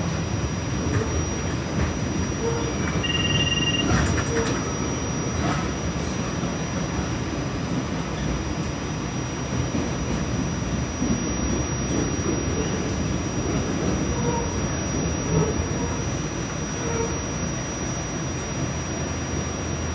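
RTA Blue Line light-rail car in motion, heard from on board: a steady rumble of wheels and running gear, with a brief high tone about three seconds in and a few clicks soon after.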